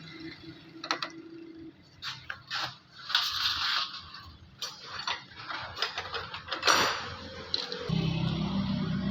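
Metal parts of a tractor's diesel injection pump being handled and worked on a bench: scattered clicks, knocks and short scrapes, the sharpest click about two-thirds of the way in. A steady low hum starts near the end.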